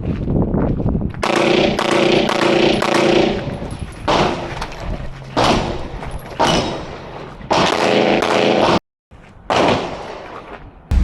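A string of gunshots at a shooting range, each shot ringing off before the next, with a brief cut to silence near the end.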